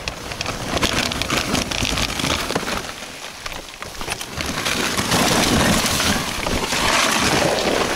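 Loose shale and gravel crunching and scraping, with small knocks and rustles, as a fallen enduro dirt bike is handled on a steep slope. No engine is running. It grows louder about five seconds in.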